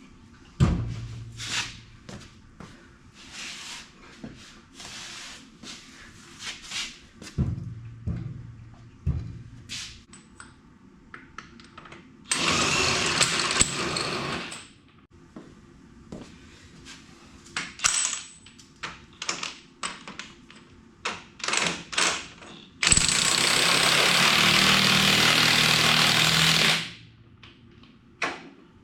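Impact wrench running in two spells, about two seconds near the middle and about four seconds near the end, between scattered clanks and knocks of metal tools and parts.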